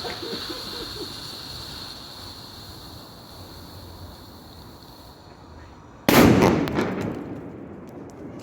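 A large firecracker goes off about six seconds in: one sharp bang whose tail fades over about a second and a half, followed by a few small clicks.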